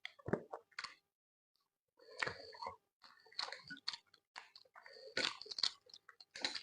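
A person chewing a meal of pounded yam, okra soup and fish: wet chewing and eating sounds in several short bursts with brief pauses between.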